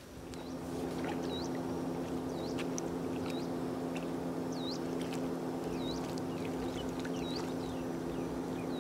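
A steady low engine drone, holding a few fixed pitches without change. Over it, a bird gives a short dipping-and-rising call about once a second.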